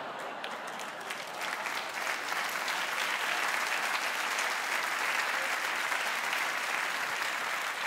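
Theatre audience applauding, the clapping swelling over the first two seconds or so and easing slightly near the end.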